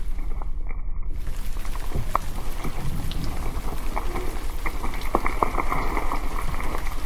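Steady crackling noise full of small scattered clicks over a low hum. About half a second in, the upper part of the noise briefly cuts out.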